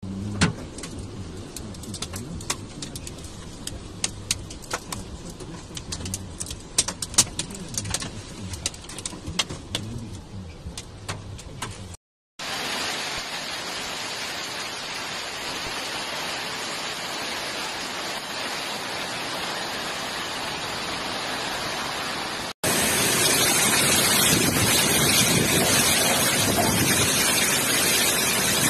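Hailstorm: for about twelve seconds, separate hailstones click and crack sharply against hard ground over a steady hiss. After a brief break comes a dense, even hiss of hail and rain pouring down, and about 23 seconds in a louder, brighter steady rush of the storm.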